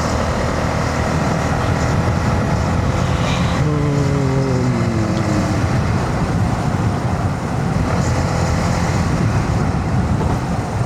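Honda CB125R single-cylinder engine running under way, with heavy wind and road noise. About four seconds in, an engine note falls in pitch over a couple of seconds as the revs drop.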